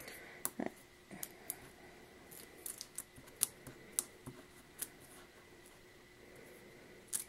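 Faint, irregular small clicks and crinkles of paper craft handling: backing peeled off foam adhesive dots and the dots pressed onto a cardstock cutout, over a faint steady electrical hum.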